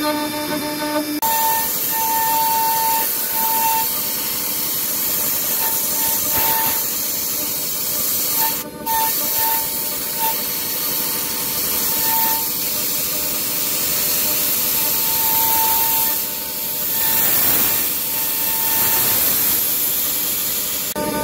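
CNC milling machine engraving a metal die blank with a fine-pointed cutter, with a steady hiss from a nozzle aimed at the cutter. A high tone from the cutting comes and goes.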